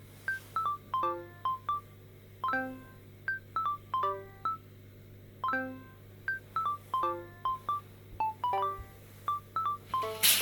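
Background music: a light melody of short, separate notes that ring briefly and fade.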